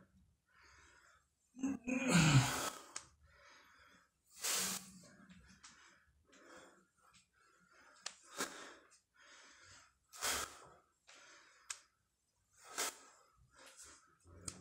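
A man breathing hard through a set of barbell back squats: a short forceful breath with each rep, roughly every two seconds. The loudest, about two seconds in, carries a low voiced grunt.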